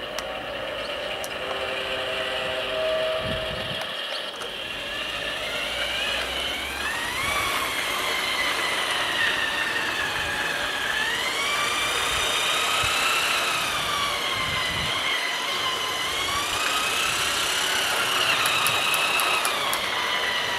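Small battery-powered electric motor and gearing of a Playmobil RC diesel shunter whining as the locomotive runs along plastic track. The pitch rises and falls as it goes.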